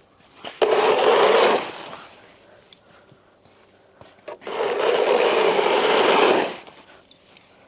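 Snow shovel scraping across pond ice in two long pushes: a shorter one about half a second in and a longer one of about two seconds past the middle, with quiet gaps and a few light knocks between.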